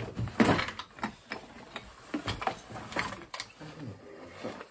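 Hands rummaging through clutter in a wooden cupboard: irregular knocks, clicks and rustles as plastic tubs, boxes and papers are shifted. The loudest knocks come about half a second in.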